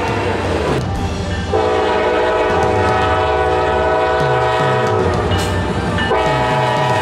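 Diesel freight locomotive's multi-chime air horn: a long steady blast of several notes lasting about three and a half seconds, a short break, then another blast starting about six seconds in. Rail car wheels click over the rails beneath it.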